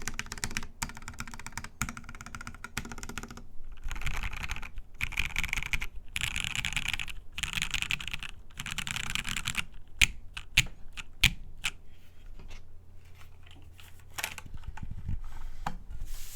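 Typing on a top-mounted mechanical keyboard with an aluminium plate, lubed Gateron Ink Black linear switches and NCR SAU dye-sub keycaps, in fast runs of keystrokes. About ten seconds in, the runs give way to a few single, louder key strikes, then scattered lighter keystrokes.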